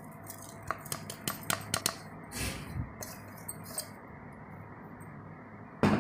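Light clicks and taps of things being handled, a short swish about two and a half seconds in, and a single louder thump near the end.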